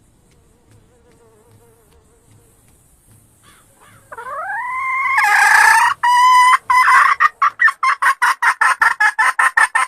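Red junglefowl hen cackling loudly: one drawn-out call that rises in pitch and swells, then a fast run of short, sharp clucks that speeds up toward the end.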